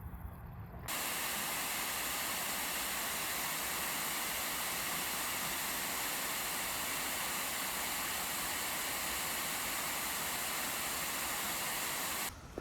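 Steady hissing rush of noise, like running water, that starts abruptly about a second in and cuts off abruptly near the end.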